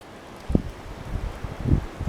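Gusty storm wind buffeting the microphone: irregular low rumbling blasts, strongest about half a second in and again near the end, over a steady hiss.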